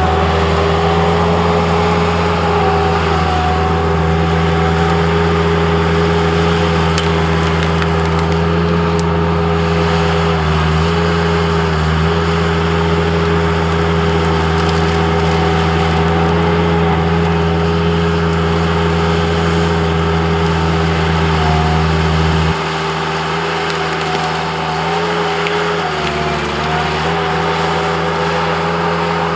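Skid loader's engine running steadily at high throttle. About three-quarters of the way through its low note drops away and it gets a little quieter.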